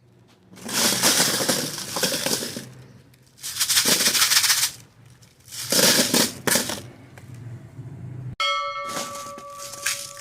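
Meat grinder grinding hard fizzy candy balls: three loud spells of crunching and crackling over a low steady hum, about a second or two each. Near the end the sound cuts off abruptly and gives way to a steady ringing tone with a few light clicks.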